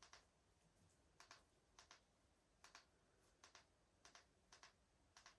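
Faint clicks of remote control buttons being pressed: about seven presses, each a quick double click, spaced half a second to a second apart.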